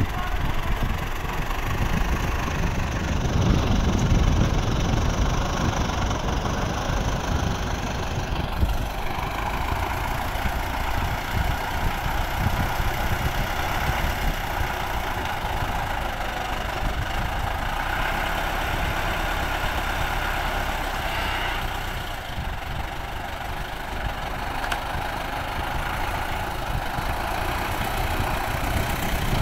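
Tractor diesel engines running steadily while a front loader works; the engine gets louder for a couple of seconds about four seconds in.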